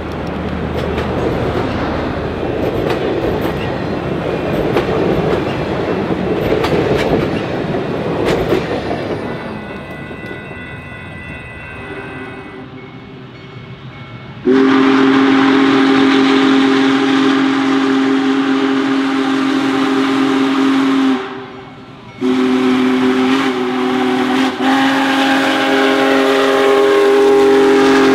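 Union Pacific Big Boy 4014 steam train rumbling and clattering along the rails, fading away over the first ten seconds or so. About halfway through, the locomotive's steam whistle blows a loud chord in two long blasts, each about six seconds.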